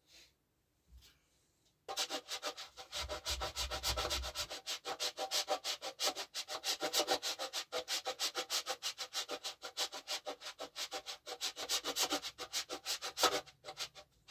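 A candle being grated by hand on a metal grater: rapid, rhythmic scraping strokes, about four or five a second, shedding wax shavings onto fabric. The scraping starts about two seconds in and keeps up steadily to near the end.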